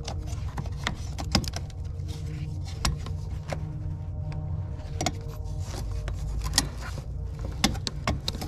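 Irregular clicks and knocks of hose lines, their metal bracket and nearby engine-bay parts being handled and shifted by hand, over a steady low hum.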